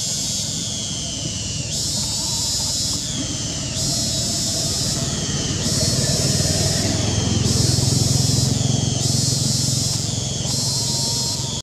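Cicadas droning in loud high-pitched pulses about every two seconds, each pulse ending in a short falling whine, over a low motor rumble that swells about halfway through.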